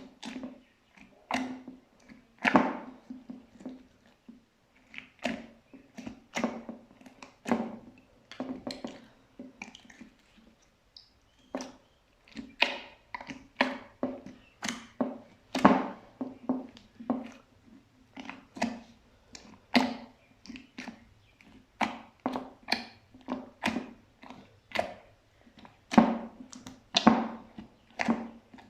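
Slime being pressed and squished by hand: a run of wet, sticky pops and squelches, about one or two a second, some sharper and louder than others.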